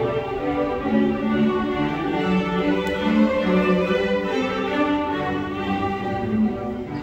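Student string orchestra playing: violins and cellos bowing sustained notes that change every second or so.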